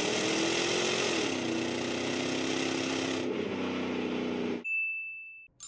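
A buzzing, engine-like sound effect whose pitch steps down about a second in and which cuts off near the end, followed by a short, high, steady beep.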